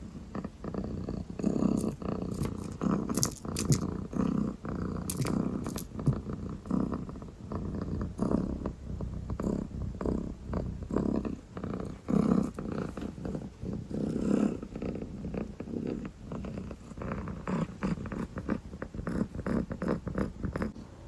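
Dilute calico kitten purring close up: a steady low rattle that swells and fades about every one to two seconds with its breathing.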